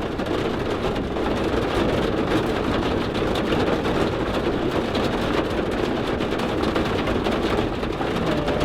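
Heavy rain pouring down steadily, a dense even hiss of many drops.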